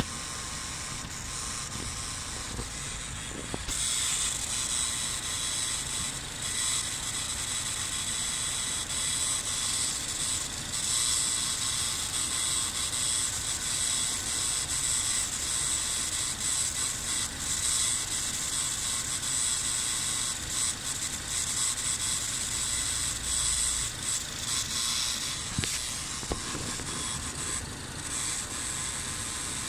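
2017 Ford Focus RS turbocharged 2.3-litre four-cylinder running and making a strange, unexplained high-pitched hissing noise over a low steady rumble. The hiss comes in about four seconds in and drops away near the end.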